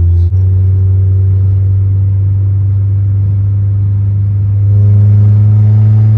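A Honda car's engine running as the car is driven: a steady low drone with a brief drop just after the start. About four and a half seconds in, it rises in pitch and gets louder as the car accelerates.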